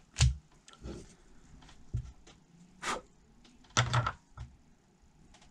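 Small objects being handled and set down on a work surface: about five separate knocks and clicks, the loudest pair about four seconds in.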